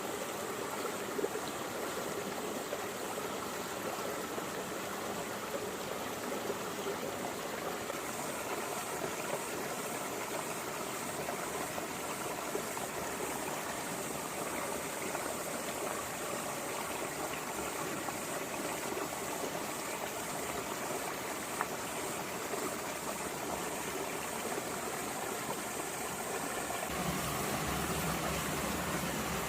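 Small rocky stream flowing and babbling steadily over stones. Near the end a low rumble joins it and the sound grows slightly louder.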